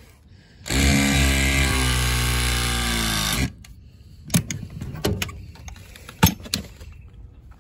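A power tool's motor runs steadily for about three seconds, its pitch sagging slightly, then stops suddenly; a few sharp knocks follow.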